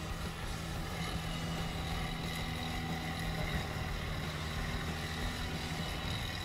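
John Deere tractor's diesel engine running steadily under load as the tractor works in deep mud.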